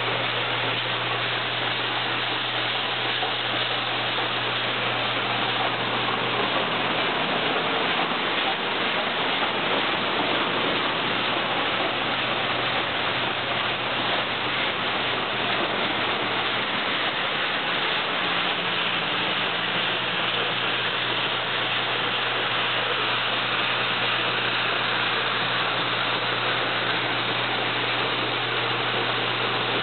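Beans pouring steadily through a 1925 Meyers grain elevator, a loud even hiss, with the steady hum of its 3 hp Masters electric motor underneath.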